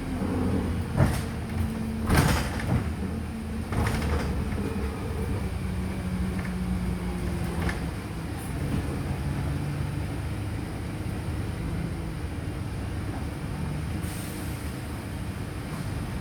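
Wright StreetLite DF single-deck bus heard from on board: the diesel engine drones steadily and its note steps up and down in pitch. A few sharp knocks or rattles come in the first four seconds, the loudest about two seconds in.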